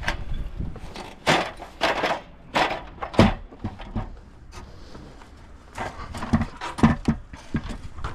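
Irregular knocks, clicks and clatter from an aluminium ladder being handled and climbed, with clusters of sharp knocks about a second in and again past the middle.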